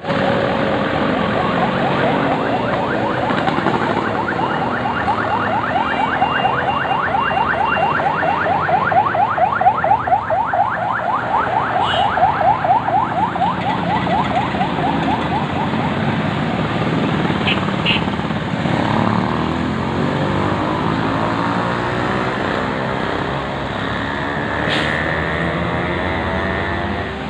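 A bus's multi-tone telolet horn sounding a fast repeating pattern for about twelve seconds over the rumble of the bus and traffic, with a higher held horn tone near the end.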